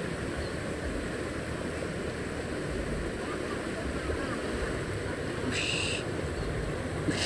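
Steady rushing outdoor noise of river water and wind buffeting the microphone. About five and a half seconds in, a short high buzzy sound lasting about half a second.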